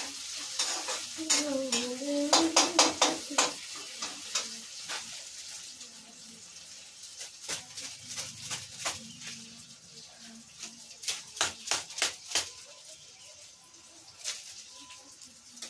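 Onion-and-tomato mix for Maggi noodles sizzling in a pan on a gas stove while a metal spoon stirs it, scraping and clinking against the pan. The sizzle is strongest in the first few seconds, then fades, leaving scattered clinks in quick runs.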